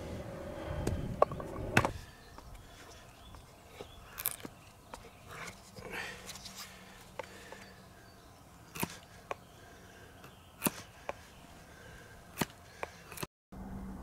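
Large bushcraft knife chopping and splitting wood on a tree stump: sharp wooden knocks at irregular intervals, the two loudest about a second and two seconds in.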